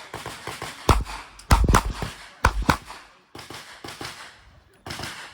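Revolver shots fired in quick pairs and singles during a stage run, about five sharp cracks between one and three seconds in and another near the end, with fainter pops in between.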